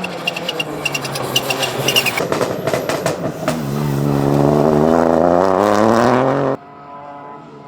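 Rally car engine under hard acceleration. Sharp crackles come first, then a loud, rising engine note that cuts off abruptly near the end. A quieter engine note follows it.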